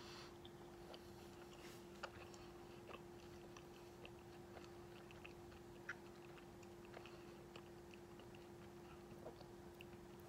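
Faint chewing of stale Peeps marshmallow candy, with many small sticky mouth clicks scattered throughout, over a steady low hum.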